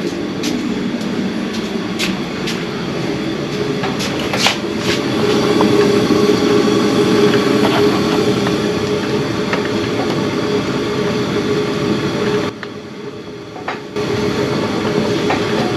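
A vehicle engine running steadily, with a few sharp knocks in the first few seconds; it drops away briefly about twelve seconds in, then picks up again.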